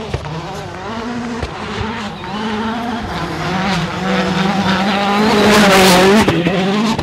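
Citroën DS3 rally car's turbocharged four-cylinder engine at full attack on a gravel stage, its note stepping up and down with gear changes and growing louder as it approaches. It passes close by about six seconds in with a loud rush of tyre and gravel noise.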